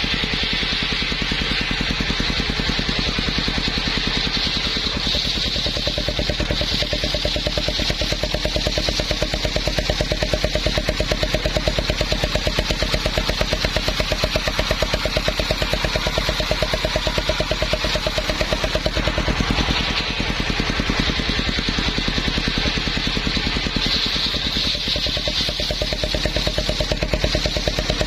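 Engine driving a circular saw, running steadily with a fast even pulse and a higher hiss that swells now and then.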